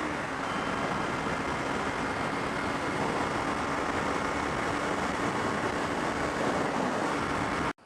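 Kawasaki Ninja 250R parallel-twin riding at a steady speed: wind rush and road noise with the engine running steadily underneath. It cuts off suddenly near the end.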